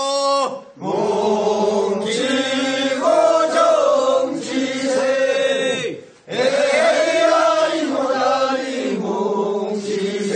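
Group of men singing in unison the refrain of a Korean rice-seedling-pulling work song (모찌는 소리), two long phrases with a short break about six seconds in.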